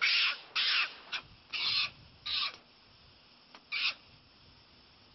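Barbary macaque giving a run of short, harsh calls, about six in the first four seconds.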